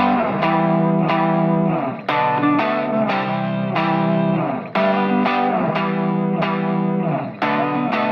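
Background music: an electric guitar with a chorus effect playing picked notes over held chords, with a fresh strike about every two and a half seconds.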